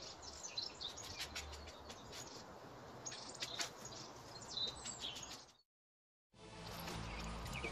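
Small garden birds chirping and twittering over faint rustles and clicks. About five and a half seconds in the sound cuts out completely for under a second, then comes back with low background music.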